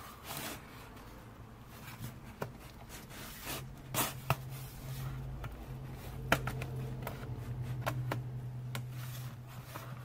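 Plastic pry tool scraping along the seam of a Dell Latitude 5520 laptop's bottom cover, with scattered sharp clicks as the cover's retaining clips snap loose. A steady low hum comes in about three and a half seconds in.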